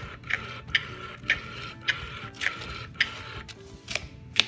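Baby Alive feeding doll's mouth mechanism running as the doll chews on the spoon: a steady faint motor whir with regular clicks, a little under two a second.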